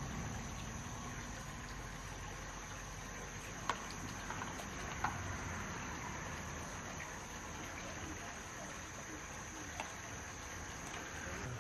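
Insects chirring steadily in a continuous high drone, with a few sharp clicks from the freshwater mussel shells being handled on the rock, about four and five seconds in and again near the end.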